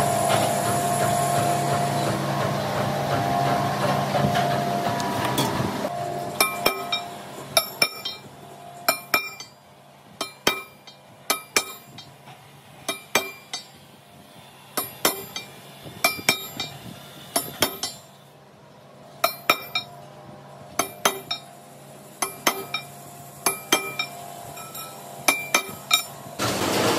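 A machine running steadily, then from about six seconds in a hammer striking metal in irregular ringing blows, often in pairs, about one or two a second; the steady machine noise comes back near the end.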